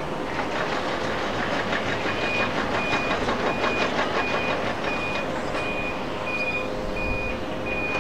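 Roar of a Boeing 777's twin GE90 engines as the airliner rolls out on the runway after landing: a dense, rough noise that eases slightly in the second half. Over it, from about two seconds in, a reversing alarm beeps about every 0.6 s.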